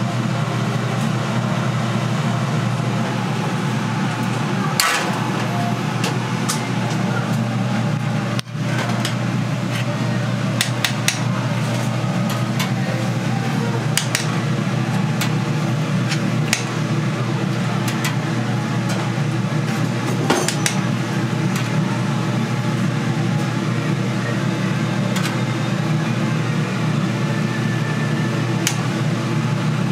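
Steady low mechanical hum, like a kitchen exhaust fan or running machinery, with scattered sharp clicks and knocks throughout. Near the middle it dips for a moment, then carries on unchanged.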